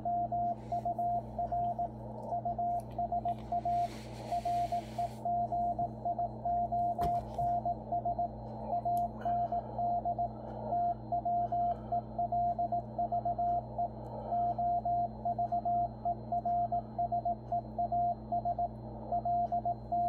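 Computer-sent Morse code (CW) bulletin from W1AW, heard through a Yaesu FTdx10 transceiver as a single mid-pitched beep keyed in evenly timed dots and dashes over a low hum. A short burst of hiss comes about four seconds in, and a click near seven seconds.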